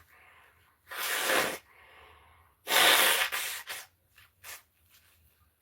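A woman blowing her nose hard, twice: two noisy blasts, the second longer and louder, followed by a few short faint snuffles.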